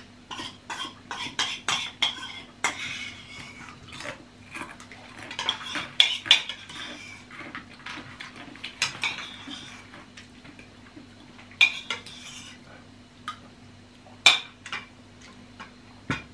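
Spoons and forks clinking and scraping against ceramic bowls of noodle soup in many short, irregular clicks, with eating noises in between.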